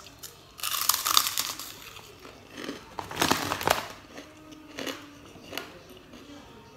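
Crunching of a large puffed cracker (kerupuk) being bitten and chewed, close to the microphone. There are two loud bouts of about a second each, followed by a few lighter single crunches.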